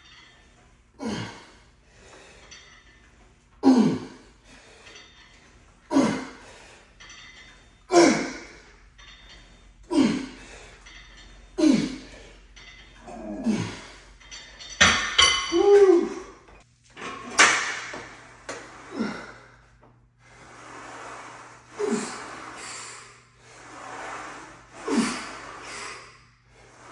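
A man's sharp, forceful exhales, one about every two seconds, in time with reps of a cable chest fly. Around the middle comes a louder strained grunt, then heavy panting between sets.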